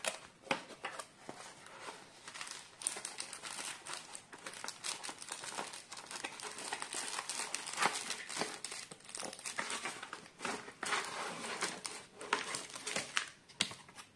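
Clear plastic packaging bags crinkling and rustling as they are slid out of a cardboard kit box, with scattered light clicks and taps of handling.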